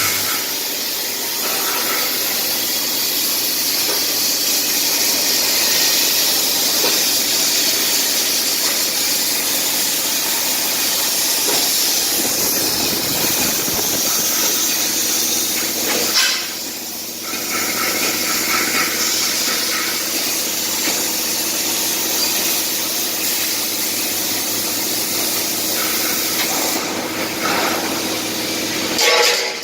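ProCut 15T CNC plasma cutter cutting 4 mm sheet steel: the plasma arc gives a loud, steady hiss. It cuts out briefly about 16 seconds in and starts again.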